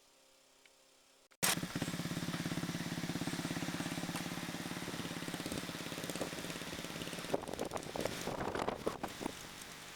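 A small engine running steadily at an even idle-like pace. It starts abruptly about a second and a half in, and irregular crackling and rustling noises join it in the last few seconds.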